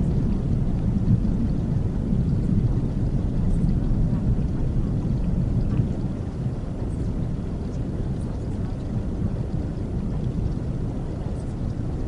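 Calm white-noise track, a steady deep rushing noise weighted toward the low end, with a few faint crackles; it drops a little in level about six seconds in.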